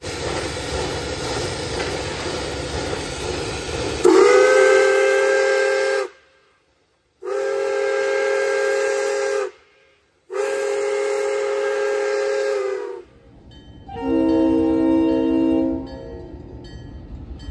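A steady rushing noise, then a diesel locomotive's multi-chime air horn sounding three long blasts, each one cut off sharply. The first blast swells up in pitch as it starts. Near the end a different, lower sustained chord sounds.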